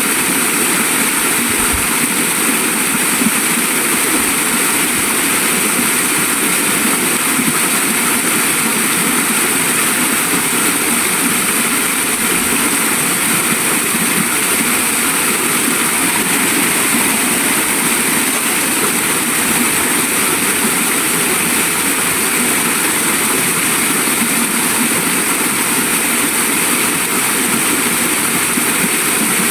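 Waterfall, its water rushing and splashing in a loud, steady, unbroken roar.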